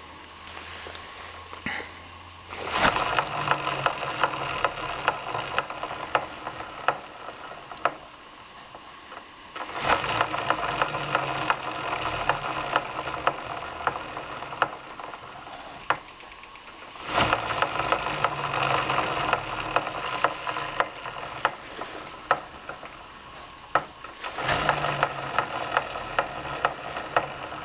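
Motorcycle engine and chain drive running, growing louder in four bouts of several seconds each, with sharp knocks repeating from the front sprocket within each bout. The owner suspects the chain was over-tightened when it was just tensioned.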